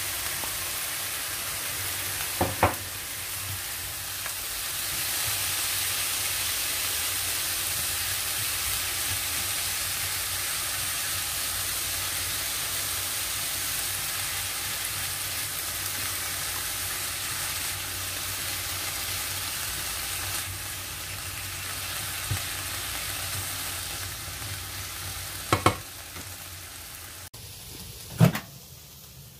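Chopped onion, tomato and green capsicum sizzling steadily in a non-stick frying pan as they are stirred with a spatula. The spatula knocks sharply on the pan once early and twice near the end. The sizzling then stops, followed by a single sharp click.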